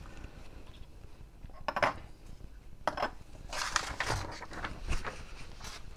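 Small hard objects clicking and clinking on a workbench: electronic modules and multimeter probes being put down and picked up. There are a few separate clicks, with a busier cluster of them in the middle.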